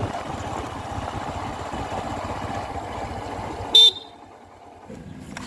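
Heavy diesel machinery running steadily. Near the end comes a brief, loud horn-like toot, and then the sound drops off sharply.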